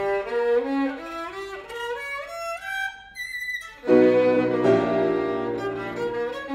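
Violin playing fast rising runs of notes up to a high held note with vibrato. About four seconds in comes a loud low chord, then another climbing run.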